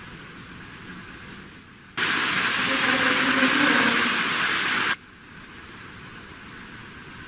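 Steady recording hiss, then a sudden boosted stretch of loud hiss about two seconds in, lasting about three seconds and cutting off sharply, with a faint low murmur in it that the investigators caption as a spirit voice saying "You gotta see my room."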